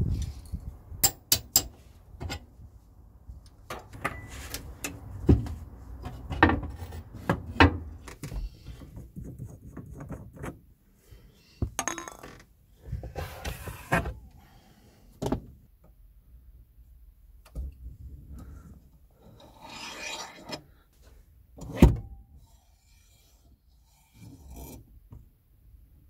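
Spanners clicking and scraping on the gear lever's mounting bolts in a run of sharp metallic clicks, then rubbing, scraping and knocks as the gear lever and its rubber boot are worked loose. The loudest is a single sharp knock a few seconds before the end.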